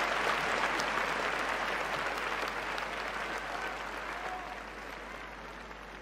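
Audience applauding, fading away gradually.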